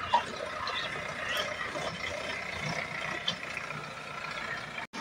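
Sonalika DI 55 tractor's diesel engine running steadily under load as it pulls a two-bottom reversible mouldboard plough through the soil, with a brief drop-out near the end.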